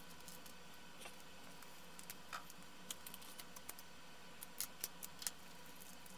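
Faint scattered clicks and light ticks of hands handling a small circuit board in a PCB holder and plastic component packaging, with a quick run of sharper clicks about two-thirds of the way through, over a faint steady hum.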